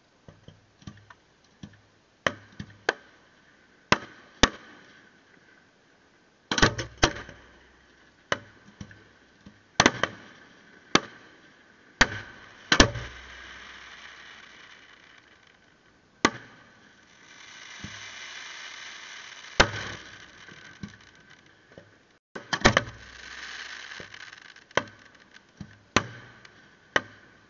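Fireworks going off: about twenty sharp bangs of shells bursting, irregularly spaced and sometimes in quick clusters, some with a short echo. Two stretches of steady hiss and crackle sit between the bangs, the first about two-thirds of the way in and the second near the end.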